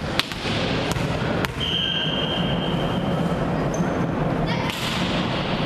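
Volleyball bounced a few times on a sports-hall floor before a serve, then a referee's whistle sounds one steady note for about two seconds. Near the end comes a smack of the ball being hit, over the steady echoing murmur of the hall.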